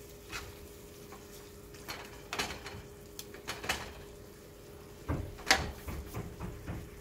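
Metal tongs clicking and knocking against a frying pan as sauced fettuccine is tossed, in scattered strokes with a louder cluster of knocks about five seconds in, over a faint steady hum.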